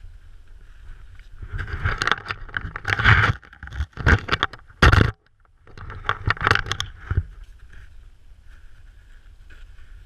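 Rustling and scraping of clothing and gear against packed snow as someone crawls through a narrow snow-cave tunnel, close to the microphone. It comes in loud, irregular bursts for several seconds, with a brief pause about five seconds in.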